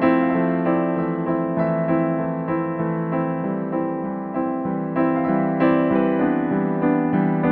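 Background piano music: notes struck over held chords, with no chopping sound standing out.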